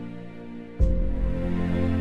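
Instrumental background music of held notes, with a deep low hit about a second in as a louder new chord comes in.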